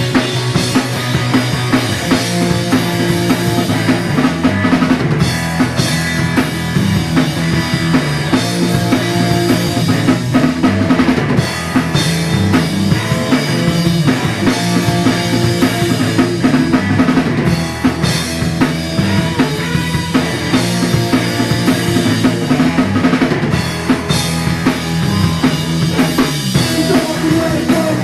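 Grunge-style rock band playing an instrumental passage: a drum kit with bass drum and snare drives a steady beat over a stepping bass line.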